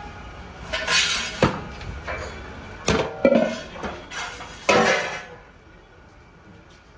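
Large aluminium cooking pots and lids clanking and scraping against each other as they are handled, with several separate clatters and sharp metal knocks, the last about five seconds in.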